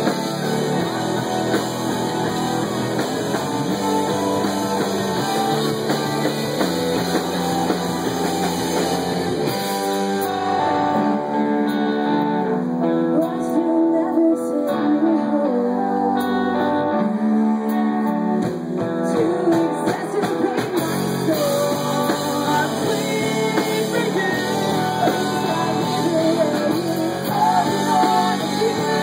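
Live rock band playing, with electric guitar and a singer. For about ten seconds midway the high-end wash thins out, then fills back in.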